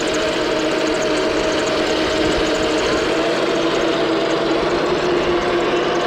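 Toy RC M1A2 Abrams tank running: a steady, unbroken mechanical hum with a constant pitch.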